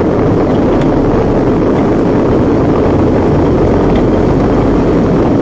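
Ten-wheeler truck's diesel engine running steadily, a loud continuous drone.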